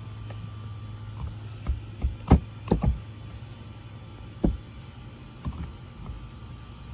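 Scattered knocks and taps of a dinosaur egg and digging tools being handled on a table, the loudest a quick cluster about two to three seconds in, over a steady low hum.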